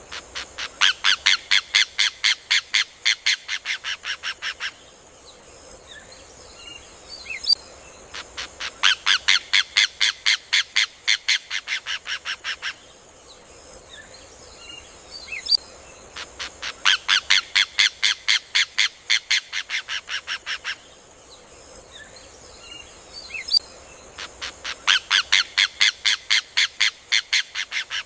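Rufous hornero (João de Barro) singing its loud, rapid series of sharp notes, about four or five a second. Each series lasts about four seconds, its notes slowing and softening toward the end, and the series comes four times, about every eight seconds.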